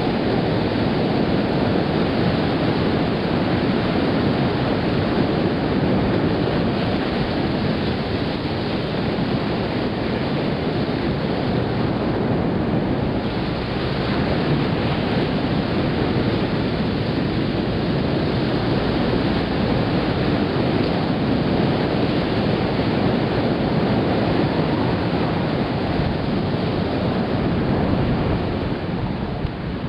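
Ocean surf washing onto a sandy beach, mixed with wind buffeting the microphone: a loud, steady rush of noise.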